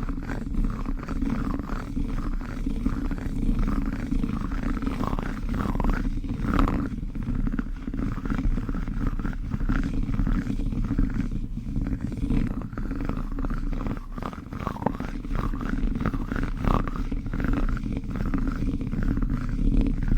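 Plastic spoon worked close to the microphone as an ASMR trigger: a continuous low rumbling scrape with scattered light clicks.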